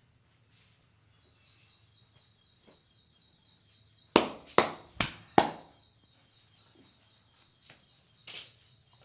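Four sharp, loud hand slaps in quick succession, about two a second, as percussive strokes of a head massage, with fainter taps before and after. A faint steady high tone sounds under them.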